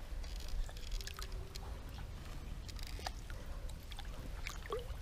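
Shallow stream water lightly sloshing and trickling around a carp held by hand in the water, with scattered small splashes and clicks over a low steady rumble.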